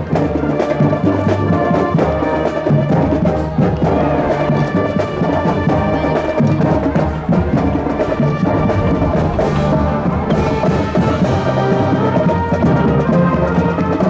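High school marching brass band playing in a parade: brass over a steady drum beat.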